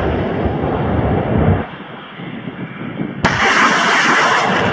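Truck-mounted multiple rocket launcher firing. The low rumble of a launch fades out about one and a half seconds in. Then, about three seconds in, another rocket goes off with a sharp crack followed by a loud, rushing hiss.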